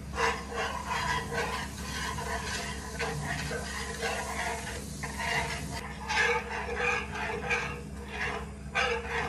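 Wire whisk stirring a thin liquid mixture in a nonstick frying pan: rapid, repeated strokes of the wires scraping the pan and swishing the liquid, with a couple of short pauses.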